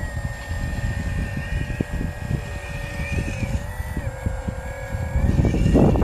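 Radio-controlled construction models at work: a steady high electric-motor and gear whine that shifts slightly in pitch, over scattered clicks and crackles. The crackling grows louder near the end.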